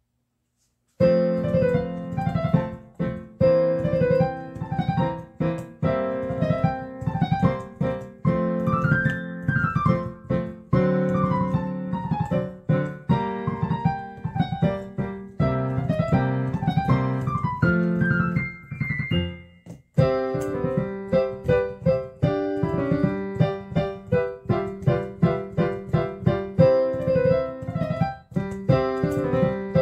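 Background piano music: struck chords under a melody, starting about a second in, with a brief break about two-thirds of the way through.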